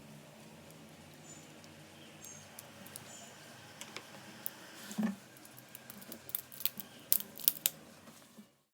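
Small hard parts being handled at a workbench: scattered light clicks and taps, a soft thump about five seconds in, then a quick run of sharp clicks near the end before the sound cuts off.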